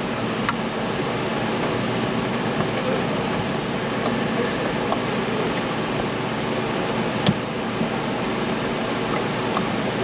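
Steady whir of a running fan, with a sharp click about half a second in and a louder knock about seven seconds in.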